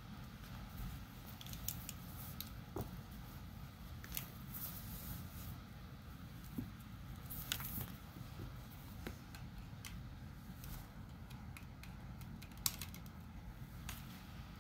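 Scattered small plastic clicks and scratches as a charging cable is handled and plugged into a wall-socket USB adapter, over a steady low rumble.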